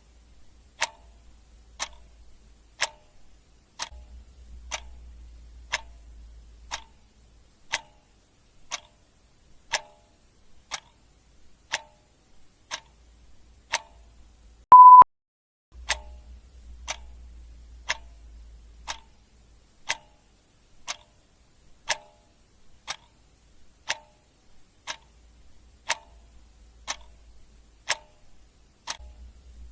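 Clock ticking sound effect, one sharp tick about every second. About halfway through, a short, loud electronic beep sounds once.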